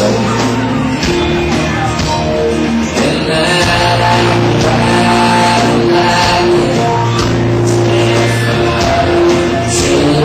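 A live rock band playing loud, with electric guitar over steady bass and drums.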